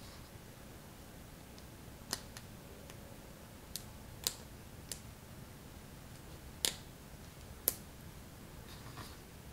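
Knockoff LEGO-style plastic building bricks clicking and tapping as they are handled and fitted together: about eight sharp, separate clicks at uneven intervals, two of them louder near the end.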